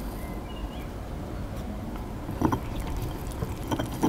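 Granite pestle working wet pesto in a granite mortar, with a few stone-on-stone knocks about two and a half seconds in and again near the end.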